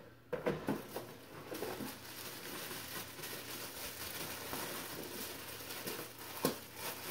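Steady rustling and crinkling of packaging being handled, with a few sharp knocks in the first two seconds and another near the end.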